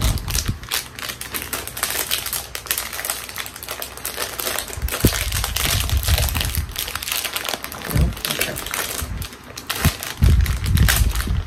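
A crinkly plastic snack bag being handled and pulled open, its wrapper crackling and crinkling continuously.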